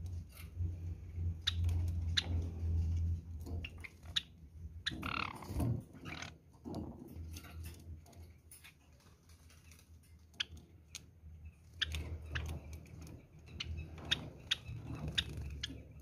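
Java sparrows moving about and bathing in an aviary make scattered sharp clicks and short chips at an irregular pace. A longer, louder noisy sound comes about five seconds in. A steady low hum runs underneath during the first few seconds and again near the end.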